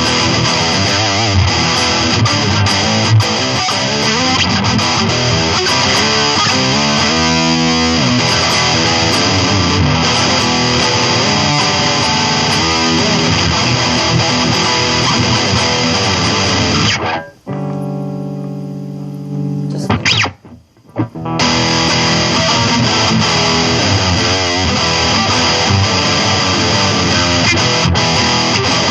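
Electric guitar played through a Line 6 Spider IV 15 practice amp on a high-gain, distorted metal setting. About seventeen seconds in, a chord is left ringing for a few seconds, cuts off briefly, and the playing starts again.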